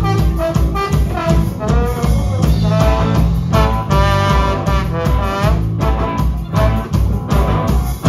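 Live band playing: a trombone over electric guitar and drums, with a steady beat.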